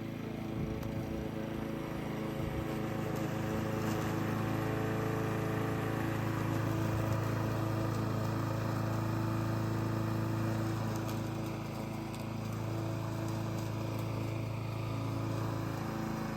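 Small petrol engine of a grass-cutting machine running steadily at constant speed, easing slightly about three quarters of the way through.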